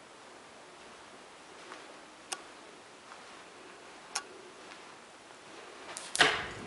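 Faint room hiss broken by two sharp clicks a couple of seconds apart, then near the end a louder knock and rattle as an interior door is pushed open.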